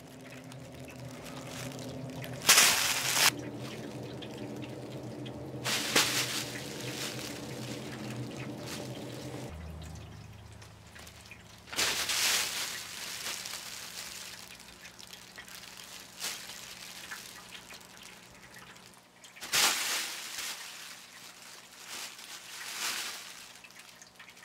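Crinkle tunnel cat toy rustling in about five short crinkling bursts as cats move through it and bat at it, over a steady low hum.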